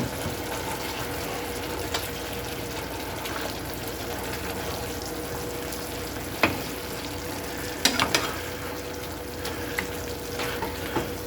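Ground beef and pork chorizo frying in a pan, a steady sizzle, with a few sharp knocks spread through it, two or three close together about eight seconds in. A faint steady hum runs underneath.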